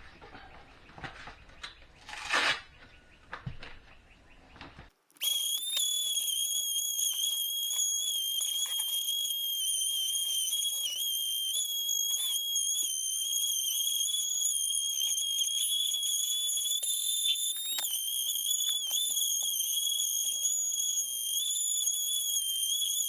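Power sander running on a filled wall patch with 80-grit paper: a steady high whine that starts about five seconds in, after a few knocks and clicks.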